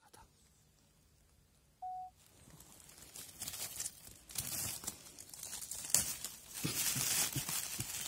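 Dry fallen leaves rustling and crackling as a hand works through them around a porcini mushroom, starting a little after two seconds in and growing louder. Just before, a single short steady tone sounds once.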